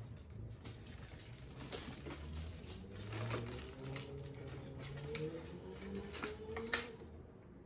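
Hard plastic parts of a Silvercrest juicer clicking and knocking lightly as the feed chute and lid are handled and fitted on the base: a scatter of small irregular clicks.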